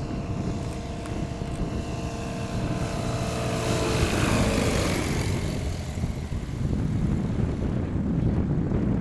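Single-engine ultralight airplane's propeller engine droning as it flies low past, growing loudest about halfway through and then dropping in pitch as it goes by.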